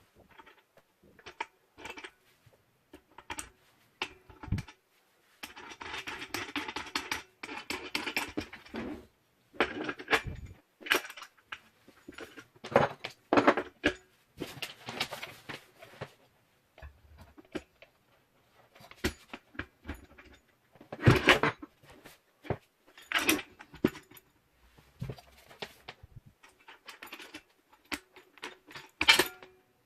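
Metal parts of a Powerfix angle grinder cutting stand being handled: irregular clinks and knocks, with a few seconds of rustling about six seconds in.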